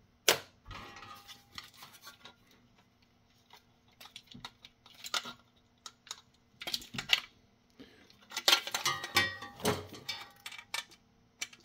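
Scattered clicks and light metallic clatter as a UPS outlet panel, its wires and screws are handled on a steel bench. The clicking is sparse at first and comes thickest about three-quarters of the way through.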